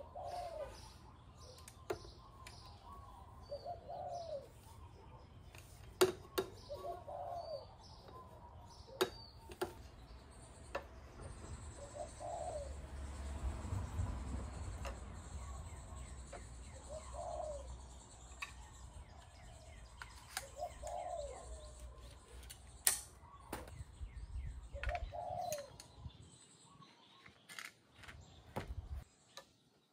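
A dove cooing over and over, one short call about every three to four seconds. Between the calls come scattered sharp clicks and knocks from the metal surf rack being handled and fitted, over a low rumble that stops near the end.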